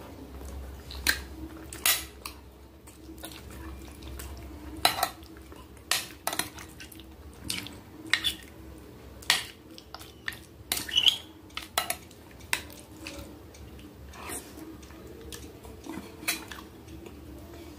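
Metal forks clinking and scraping against a glass baking dish while scooping out sauced ravioli: about a dozen irregular sharp clinks.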